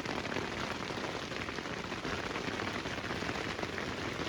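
Heavy downpour pelting a tarp overhead: a dense, steady clatter of rapid impacts.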